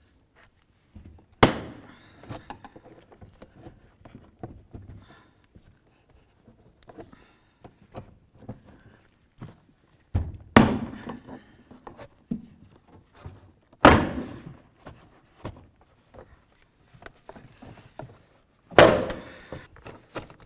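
Plastic push clips of a 2004 Buick LeSabre's door trim panel popping free as the panel is pried off the door. Four loud, sharp snaps come several seconds apart, with small plastic clicks and rustling between them.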